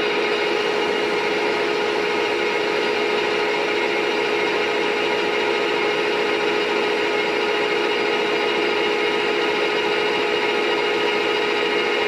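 16K20 geared-head lathe running while turning a steel axle: a steady machine hum with a strong mid-pitched tone and a rasping cutting noise from the tool on the shaft.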